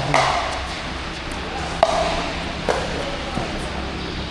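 Pickleball rally: paddles hitting a plastic ball with sharp, ringing pops. There are about three hits in under three seconds, the loudest a little under two seconds in.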